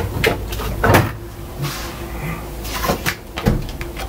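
A door being opened and shut, several clunks and knocks, as the fridge is opened to take out milk.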